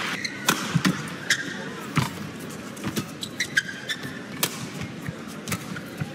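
Badminton rally: the shuttlecock struck back and forth by rackets, sharp hits every second or so, with shoes squeaking on the court floor.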